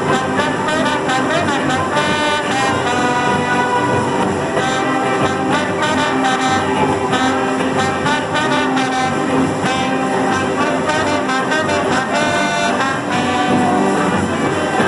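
An orchestra with a strong brass section playing, trombones and trumpets carrying sustained melody notes.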